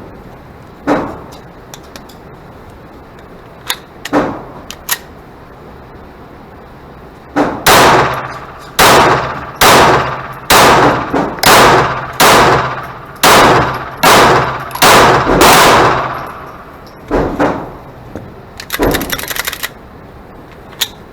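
Glock 44 .22 LR pistol fired in a steady string of about a dozen shots, each under a second apart, with a few lighter knocks before and after.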